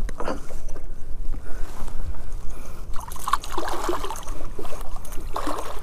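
Water splashing and sloshing beside a kayak as a hooked redfish thrashes at the surface by the popping cork, the splashing heaviest a few seconds in, over a steady low rumble.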